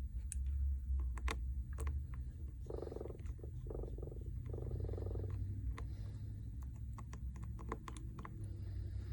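Scattered small clicks and taps of tools and hands working on a smartphone, over a steady low hum. Three short buzzing tones come in the middle.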